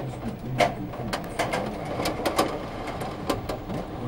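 Hail and heavy rain falling, with hailstones hitting roofs and pavement as a dense, irregular run of sharp clicks over a steady rush of rain.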